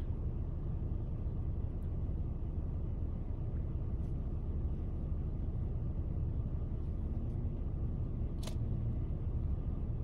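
Steady low rumble of a car's engine and road noise heard inside the cabin. A single short click comes about eight and a half seconds in.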